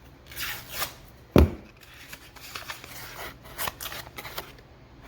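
Hands working a drywall patch piece, with short scraping, crackling sounds of gypsum and paper. One sharp knock about a second and a half in.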